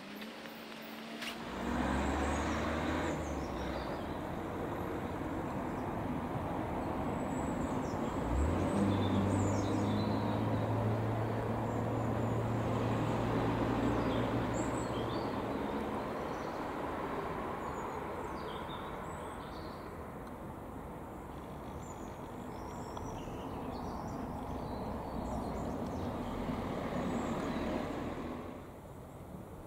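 A motor vehicle's engine running, a steady noise with a low hum that starts suddenly about a second and a half in and stops shortly before the end. Birds chirp faintly and high above it.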